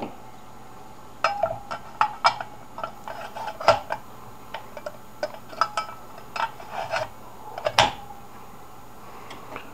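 Parts of a gumball machine being handled and fitted back together: irregular hard clinks and clacks, some with a short ring, the two loudest about four and eight seconds in.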